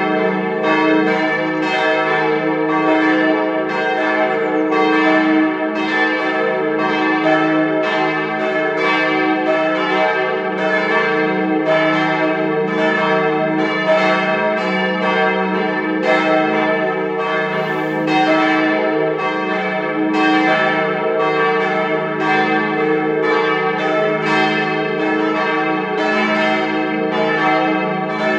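A partial peal of the church bells of St. Ewaldi's tower: several swinging bells ringing together, their strokes overlapping at about two a second over a steady hum of ringing tones.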